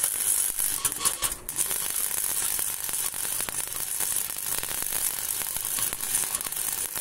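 MIG welder arc crackling steadily as steel is welded, fusing the new box-section cross member to the vehicle's floor.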